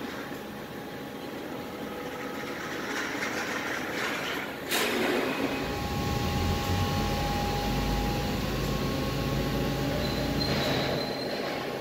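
Mitsubishi ML3015LVP Plus II 4000 W CNC laser cutter running while it cuts sheet metal: steady machine noise with faint whining tones. There is a sharp click about five seconds in, then a low rumble swells for several seconds and eases off near the end.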